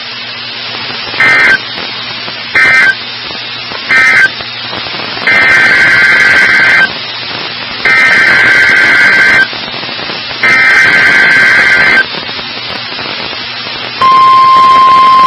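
NOAA Weather Radio Emergency Alert System data bursts: three short, raspy two-tone bursts (the end-of-message code closing the routine weekly test), then three longer bursts of the same sound (the SAME header opening a new alert, a test tornado warning). About a second before the end, the steady, loud Weather Radio warning alarm tone begins.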